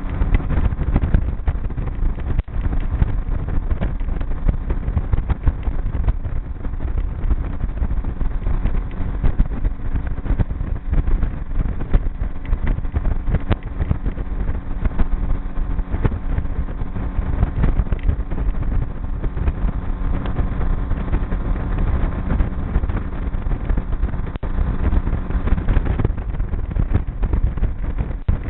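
Outboard motor of a small G3 V167 aluminum boat running at a steady cruising speed, a steady low engine hum, with wind buffeting the microphone.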